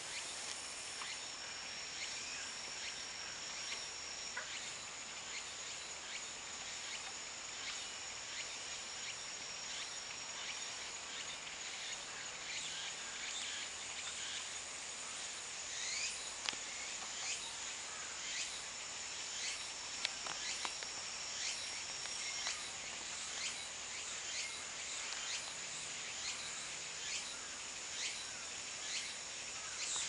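Insects trilling steadily in a high, even tone, joined now and then by a second slightly lower trill, with many short high chirps scattered throughout.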